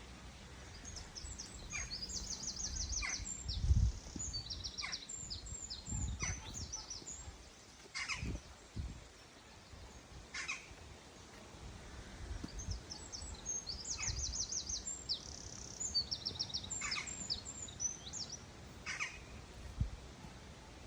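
A small songbird singing two bouts of fast, repeated high notes, each a few seconds long, with scattered short sharp calls. Low thumps sound underneath, loudest about four seconds in.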